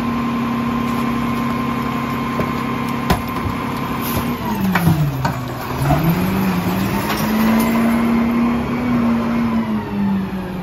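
Mack LR rear-loader garbage truck's engine running at a steady speed, with a sharp click about three seconds in. About four seconds in the revs drop, then climb again as the truck pulls away, and they ease off near the end.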